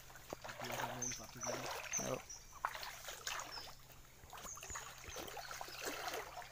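Bare feet wading through shallow river water, sloshing and splashing in irregular strokes over a faint trickle of flowing water.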